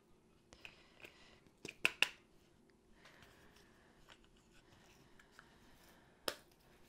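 Small plastic diamond-painting drill container and tray being handled: scattered light plastic clicks and taps, a quick cluster about two seconds in and one sharper click near the end.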